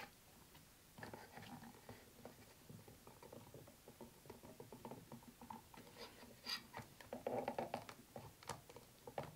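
Faint clicks, taps and scratches of small plastic figurine parts being handled, as a translucent plastic swim ring is worked onto the figure, busiest a little past the middle.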